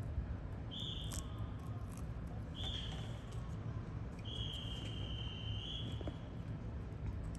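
A high steady tone sounds three times over a low steady hum: two short ones, then a longer one of about two seconds. A few faint clicks fall between them.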